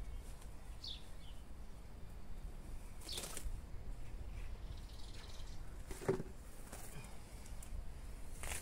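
Grass and weeds being torn up and handled by hand: a few short rustling crackles, about three seconds in, again at six seconds and near the end. A small bird gives a brief high chirp about a second in, over a low steady rumble.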